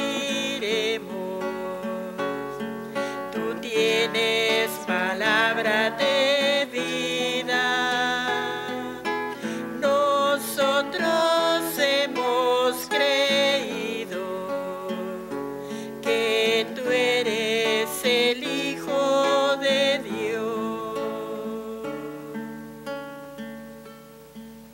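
Church hymn sung by a vibrato singing voice with acoustic guitar accompaniment, fading out over the last few seconds.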